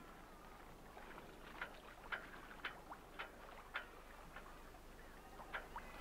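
Faint background aboard a small sailing boat: a light wash of water with a run of short, sharp ticks about two a second for a couple of seconds, then a few more near the end.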